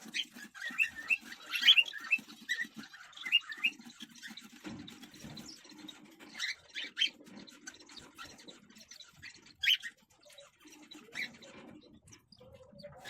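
Cockatiels giving short chirps and squawks in quick runs, busiest in the first few seconds, then single calls scattered through the rest.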